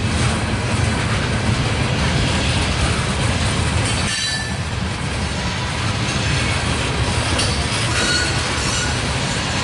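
Freight train tank cars rolling past with a steady rumble of wheels on rail. Brief high wheel squeals come about four seconds in and again near the end.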